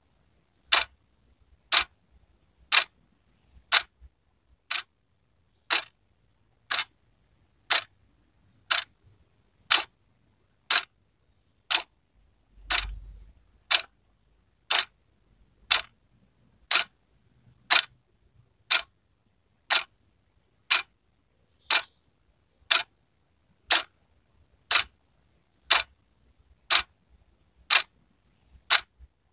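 Wall clock ticking: sharp, even ticks about one a second. A brief low rumble sounds about halfway through.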